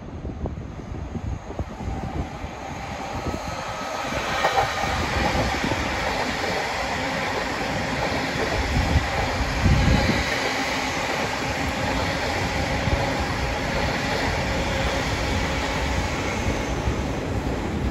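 Electric multiple-unit passenger train running into the platform. It grows louder over the first four seconds as it approaches, then holds a steady rumble of wheels on rails with a faint steady whine.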